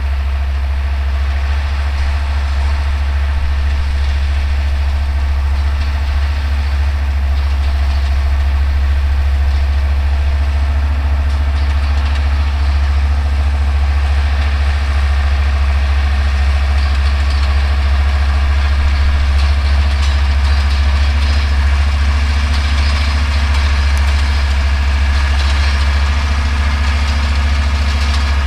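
Older Deutz tractor's diesel engine running steadily while pulling and powering a New Holland 644 round baler at work, with the baler's machinery noise over the engine. The sound grows a little louder over the first several seconds.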